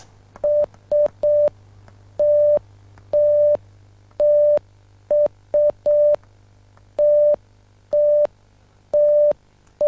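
Morse code SOS keyed by finger on a circuit board wired as a transmitter, sounding as a single steady beeping tone: three short beeps, three long, three short, three long, and the next short beep starting at the very end.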